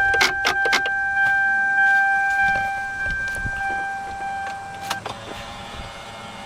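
Lexus SC300 power tilt steering column motor running as the wheel tilts down: a steady whine with sharp clicks and knocks in the first second, cutting off about five seconds in. The grinding is the sign of a fault in the tilt mechanism.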